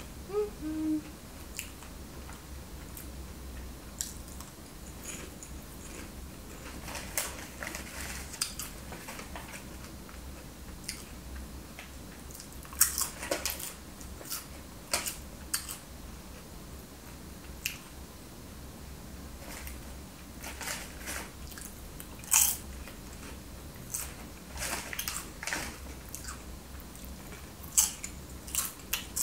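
Potato chips being crunched and chewed close up, with irregular sharp crunches and rustling of the chip packet, over a low steady hum.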